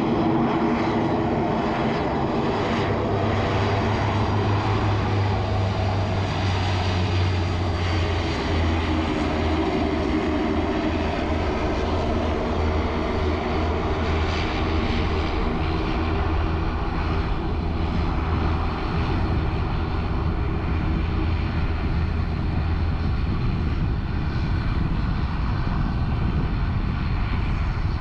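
Dornier 328 twin turboprop rolling out after touchdown, its engines and propellers making a steady drone with several held tones that drift a little lower in pitch over the first ten seconds or so.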